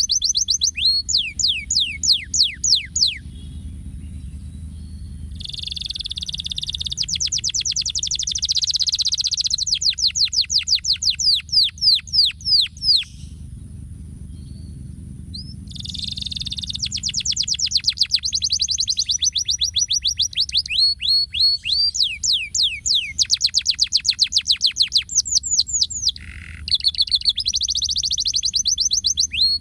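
Domestic canary singing: long phrases of rapid trills made of fast, repeated downward-sweeping notes, broken twice by short pauses.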